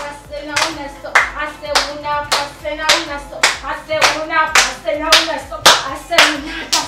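Two people's hands clapping in a steady rhythm, a little under two claps a second, with singing between the claps.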